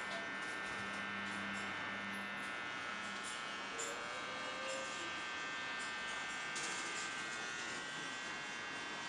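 A steady electrical buzz with several fixed high whining tones, with faint scattered ticks over it and a short rising squeak about four seconds in.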